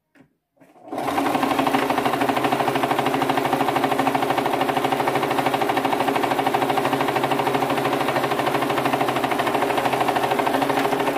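Domestic electric sewing machine running at a steady speed, stitching a seam along the curved edge of two layers of fabric. It starts about a second in, keeps a fast, even stitching rhythm, and stops abruptly near the end.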